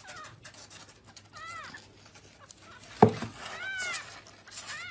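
A kitten mewing: several short, high calls that each rise and fall. A sharp knock about three seconds in is the loudest sound.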